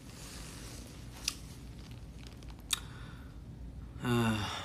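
Quiet room tone with two faint, sharp clicks about a second and a half apart, then a short hummed "hmm" from a man near the end.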